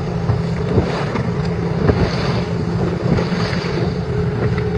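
Wind buffeting the microphone and the wash of open sea, over a steady low hum from the boat.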